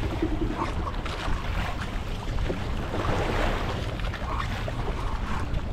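Wind buffeting the microphone on a small fishing boat at sea, over a steady low rumble and sloshing water.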